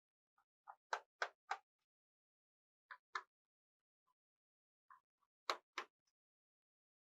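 Small sharp clicks and taps in three short clusters, from a screwdriver working screws out of a laptop's underside.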